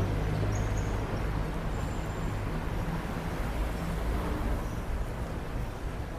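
A vehicle engine running steadily: a low hum under general outdoor street noise.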